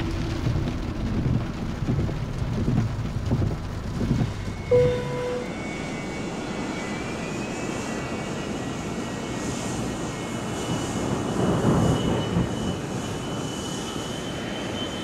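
For the first few seconds, rain with a low, uneven rumble. About five seconds in it cuts to the steady noise of an airliner's jet engines heard from inside the cabin, with a thin high whine that slowly rises in pitch, after a short tone at the cut.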